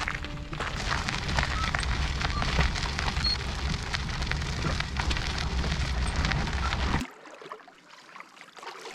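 Dense crackling, rushing noise over a heavy low rumble, with many small clicks and ticks. It cuts off abruptly about seven seconds in, leaving a much quieter background.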